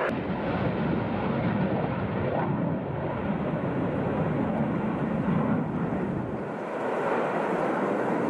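Jet aircraft in flight: a steady, rushing engine rumble that dips slightly about two-thirds of the way through.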